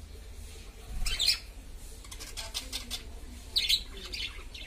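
Budgerigars chirping in short, scattered calls: one about a second in, a quick run of several in the middle, and a couple more near the end.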